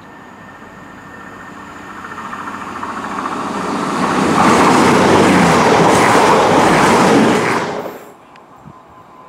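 CrossCountry Voyager diesel multiple unit running through the station, its wheels and underfloor diesel engines growing steadily louder as it approaches and passes close by. The rush cuts off suddenly near the end.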